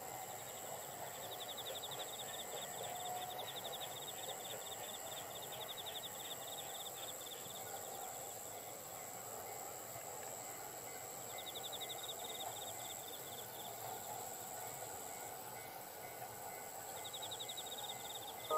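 Insects calling in a rice field: a steady high-pitched trill with a rapidly pulsed chirp coming in three spells, about a second in, near the middle and near the end. Under it is a faint, even rumble of a train passing in the distance.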